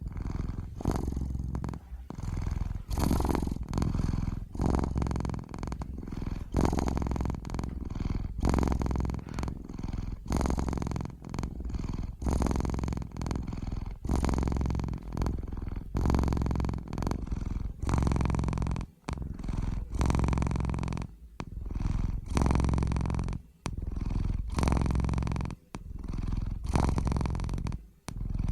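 Domestic cat purring close up, a steady rhythmic purr that swells with each breath, about one pulse per second with short breaks between.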